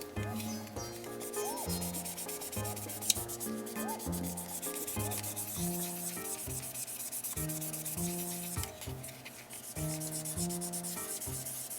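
Fine-grit sanding pad rubbed rapidly back and forth by hand on the painted plastic hood of a model car, a steady scratchy rubbing as the paint is polished out. Background music plays underneath, and there is a single sharp click about three seconds in.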